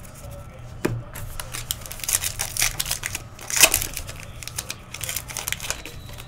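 Trading-card pack wrapper being torn open and crinkled in the hands: a run of crackling and tearing, loudest about halfway through. A single thump comes about a second in.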